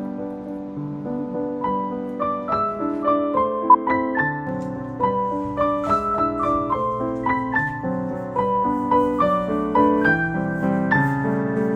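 Background piano music: a steady run of notes over lower chords.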